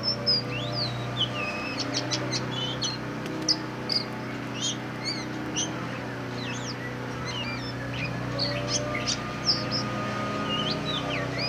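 Caged black magpie-robin (kacer hitam) singing: a quick, varied run of short whistled notes and chirps, some rising, some falling, over a steady low hum.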